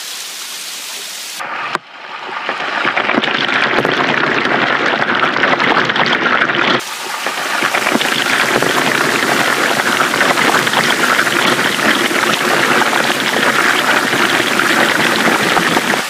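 Small waterfall pouring and splashing close by onto rocks and onto a tablet in a waterproof case held in the falling water: a steady loud rush. It is quieter for the first second and a half, then rises sharply within about a second.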